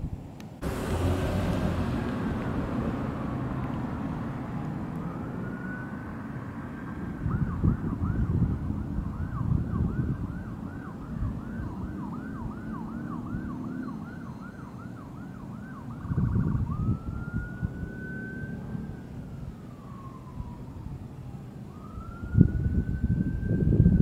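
Emergency vehicle siren sounding in slow wails, switching to a fast yelp for several seconds, then back to slow wails, over a low rumble.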